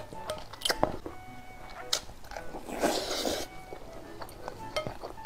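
Close-miked eating: a plastic spoon clicking and scraping in a glass bowl of rice with steamed egg and minced pork, and wet chewing, with a longer noisy slurp about three seconds in. Faint background music underneath.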